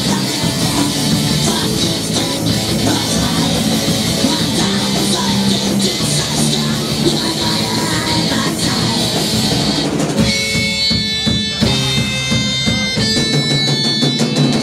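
Rock band playing live: drums and distorted guitar in a dense, loud passage that thins out about ten seconds in to separate sustained notes over the drums.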